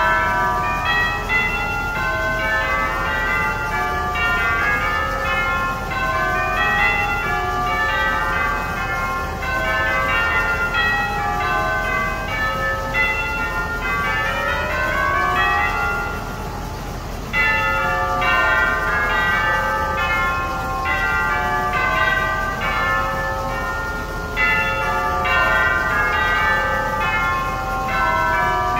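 A melody played on sampled tubular bells: many ringing notes struck in quick runs, carried over a steady low diesel engine rumble. The bell notes stop briefly just past the middle, then the melody picks up again.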